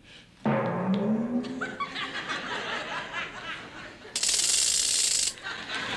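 Studio audience laughing. About four seconds in, a hissing sound effect bursts in for about a second and cuts off sharply.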